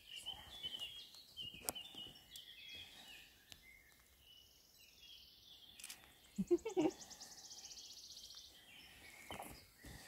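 Quiet outdoor ambience with small birds chirping, a brief voice about six and a half seconds in, and a fast high-pitched trill through the second half.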